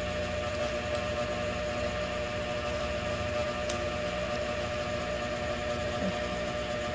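Steady background hum made of several constant tones, with two faint clicks, about one second in and near four seconds in, as the plastic smartphone clip holder is handled.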